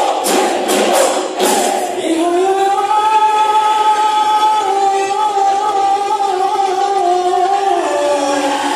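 Live Bihu music: a few sharp dhol strokes in the first second and a half, then voices singing together, holding one long, slightly wavering note.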